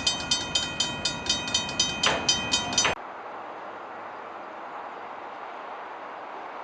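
Railway level crossing bell ringing rapidly, about four strokes a second, warning of an approaching train; it cuts off abruptly about three seconds in, leaving a steady hiss.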